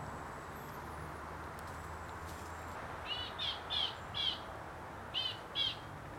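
A wild bird calling: a quick run of four short, identical notes about three seconds in, then two more about a second later, over a steady background hiss.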